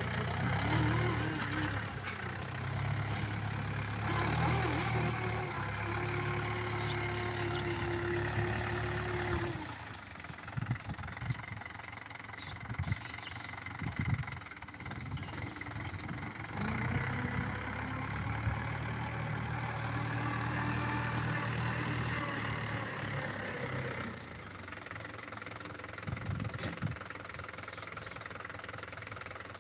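Mahindra 475 DI tractor's diesel engine running steadily while pulling a tillage implement through a field, louder for the first ten seconds and again from about 17 to 24 s as the tractor comes nearer, quieter in between.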